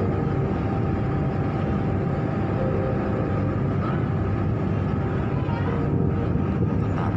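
Steady low drone of the passenger ship KM Awu's engines and machinery, heard from on deck as it manoeuvres to berth, with a faint hum on top.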